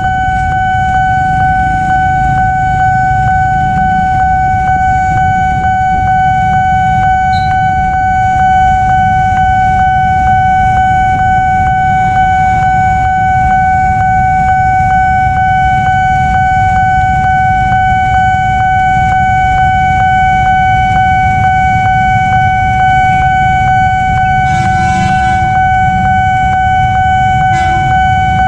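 Railway level-crossing warning alarm sounding one steady high tone without a break, over the low running of idling motorcycle engines at the barrier. A horn sounds briefly twice near the end as the train approaches.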